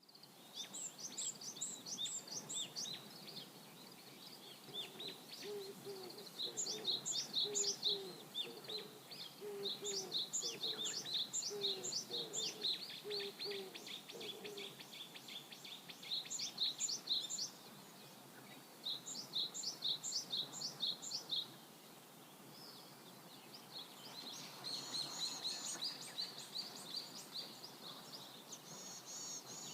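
Birds singing outdoors: bursts of quick, high chirps repeated in series of a few seconds each. Between about 5 and 15 seconds in, a lower call repeats under them.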